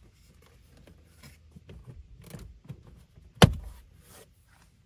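Plastic lower-dash switch panel of a 5th-gen Toyota 4Runner being pushed back into the dashboard: rustling and scraping of plastic and tucked-in wires with small clicks, then one sharp snap about three and a half seconds in as the panel clips home.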